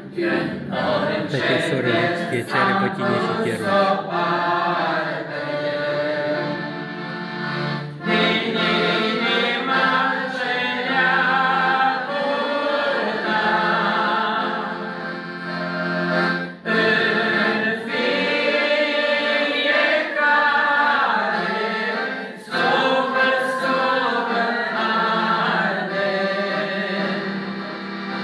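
A man sings a Romanian hymn, accompanying himself on a piano accordion, in long phrases with brief breaths between them.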